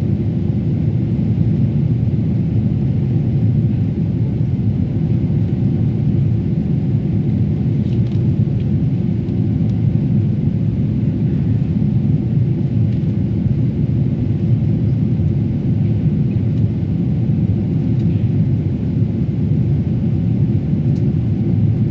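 Steady low rumble of a Boeing 777-300ER's GE90 jet engines and rushing air, heard inside the passenger cabin as the airliner takes off and climbs.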